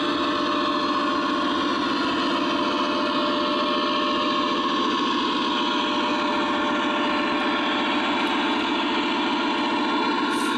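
Lionel O-gauge model train running on three-rail track with a CSX diesel locomotive, a steady drone of motors, wheels and diesel engine sound.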